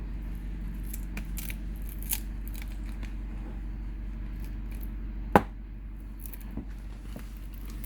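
Light ticking and scraping of hands working a tablet's screen free of its adhesive, with one sharp click about five seconds in, over a steady low hum.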